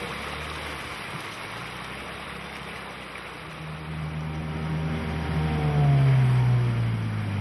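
Outboard motor of a small river boat running over rushing water; the motor grows louder about halfway through and its pitch drops a second or so later before it runs on steadily.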